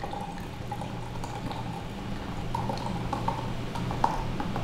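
Sparkling wine poured from the bottle into a cocktail glass, fizzing as it foams up, with scattered small ticks of bursting bubbles.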